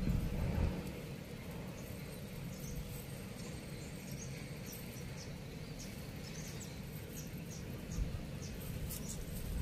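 Steady low rumble of wind on the microphone with faint, irregular high clicks about once or twice a second, and a brief thump of handling noise at the very start.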